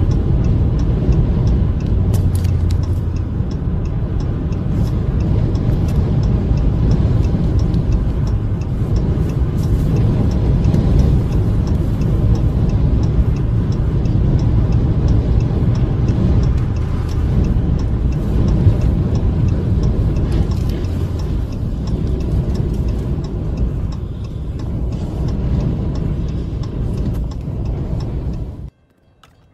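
Steady, heavy low rumble of wind buffeting and road noise from a car driving at highway speed in strong crosswinds, with frequent faint clicks over it. It cuts off suddenly near the end.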